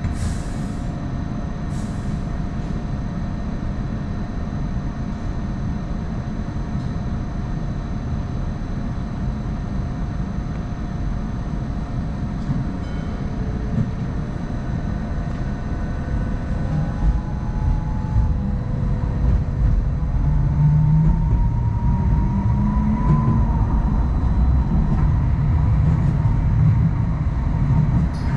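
Hong Kong Light Rail Phase I light rail vehicle running, heard from on board: a steady rumble of wheels on track under a faint steady tone. From about seventeen seconds in, a motor whine appears and climbs in pitch, and the running grows louder as the car picks up speed.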